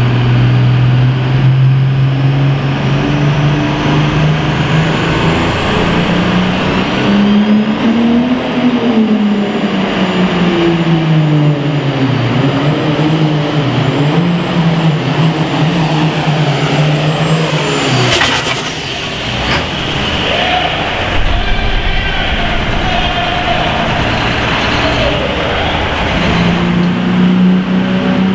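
Turbocharged diesel super farm pulling tractor running hard under load, its engine pitch wavering up and down, with a high turbo whistle rising over the first several seconds. About two-thirds of the way through there is a sharp crack and the engine note drops away, then it comes back steady near the end.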